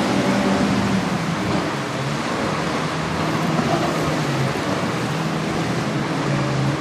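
Jet ski engine running, its note shifting in pitch as the rider works the throttle through choppy water, over a steady wash of waves and wind.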